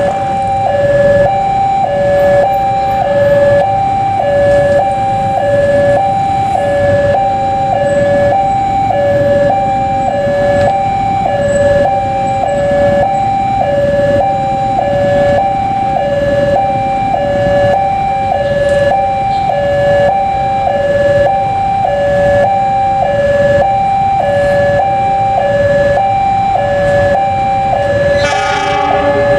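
Railway level-crossing warning alarm sounding a steady two-tone electronic 'ding-dong', low and high tones swapping about twice a second, while a train approaches the crossing. Near the end a short, bright horn blast from the oncoming diesel locomotive breaks in.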